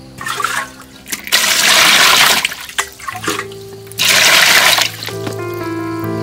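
Water poured and splashing into an aluminium basin of small octopuses: a brief splash, then two loud gushes of about a second each. Background music with held notes plays under it.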